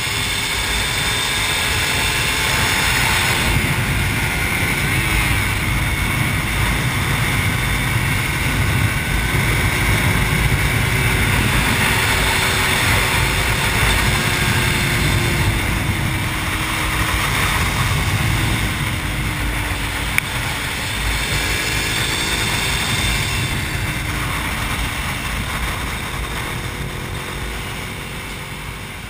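Onboard sound of a sport motorcycle at speed on a track: heavy wind rush over the microphone over an engine held at fairly steady revs, its pitch drifting gently up and down. There is one sharp tick about twenty seconds in.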